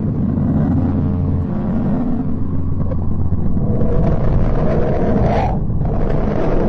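A deep, noisy drone from a space 'planet sound' sonification. It carries a steady low hum for the first second and a half, and a pitch rises near the end before the sound cuts off abruptly.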